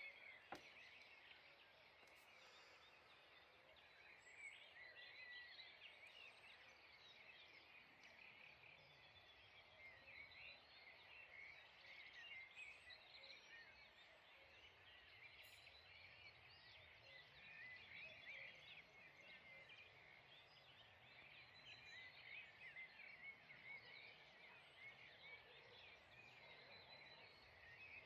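Faint dawn chorus: many songbirds singing and chirping at once in a dense, continuous wash of high trills. A single sharp click sounds just after the start.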